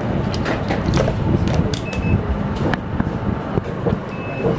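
Steady low rumbling background noise with scattered light clicks and taps.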